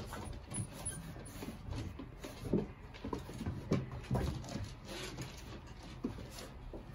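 Five-week-old golden retriever puppies playing: scattered short grunts and small vocal noises, with paws scuffling on the plywood floor of the pen.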